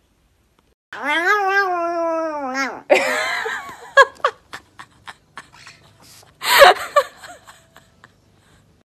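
An Oriental shorthair-type cat gives one long, drawn-out honking yowl lasting about two seconds, dropping slightly in pitch at the end. Later come a few sharp clicks and one short, loud burst of noise about two-thirds of the way through.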